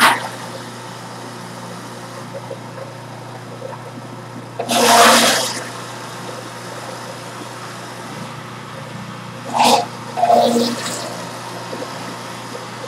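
Electric juicer's motor running with a steady hum while produce is fed into the chute. Loud grinding surges as pieces are crushed: one about five seconds in and two shorter ones close together around ten seconds in.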